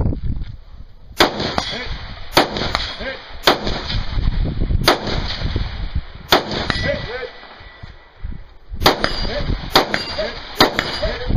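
Rifle shots fired one at a time, eight in all, about a second apart with a longer pause in the middle. Steel targets ring faintly after several of the shots.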